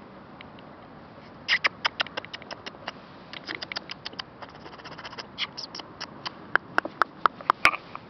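Irregular clicking and scraping of loose gravel on a dirt road as a puppy noses and paws at the ground, starting about a second and a half in, with a run of sharper, louder clicks near the end.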